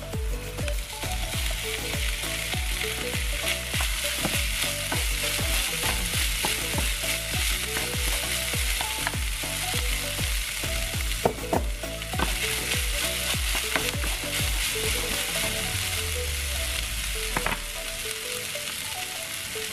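Rice, green beans and garlic frying in oil in a nonstick frying pan, a steady sizzle while a wooden spatula stirs and scrapes through the rice, with frequent small taps against the pan. The sizzle eases a little near the end.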